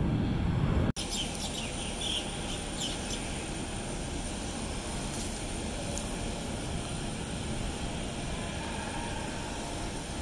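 Jet airliner engines rumbling on the runway, breaking off abruptly about a second in; then a steady airport background of distant jet engine noise with a faint high whine and a few bird chirps in the second and third seconds.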